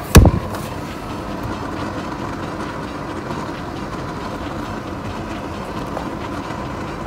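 One loud thump just after the start, over a steady whirring noise that is typical of the appliance's fan running.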